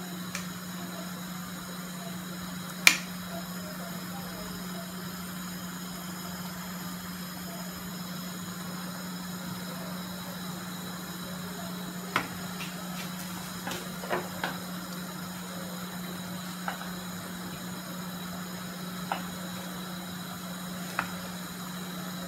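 Cooking utensils knocking against a stainless steel pot while a stew is stirred: a handful of short sharp clicks, the loudest about three seconds in and the rest scattered through the second half, over a steady low hum and hiss.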